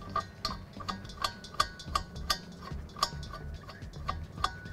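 Light metallic clicking, about three clicks a second and unevenly spaced, as a gas hose's hand-wheel fitting is screwed counterclockwise onto an LPG gas bottle's valve.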